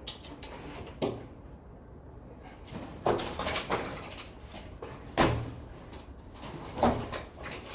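A handful of separate knocks and bumps in a small room, about five spread over several seconds, from the handling and moving about during the attempt to catch a bird in a box.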